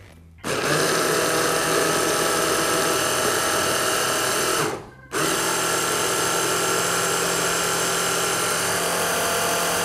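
Electric hand blender on a chopper bowl attachment, puréeing chickpeas into hummus. The motor runs with a steady whine, stops for a moment about five seconds in, then starts again.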